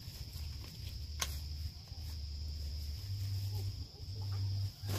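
A hand hoe knocking into red garden soil, two sharp strikes, one about a second in and one at the end, over a steady high insect drone and a low rumble.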